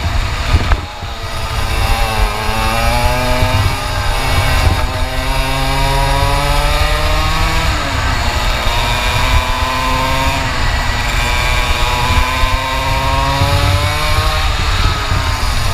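Onboard sound of a 125 cc two-stroke kart engine under racing load, its revs climbing steadily through each short straight and dropping back as the driver lifts for the bends, several times over. A brief dip in engine note about a second in as the throttle comes off.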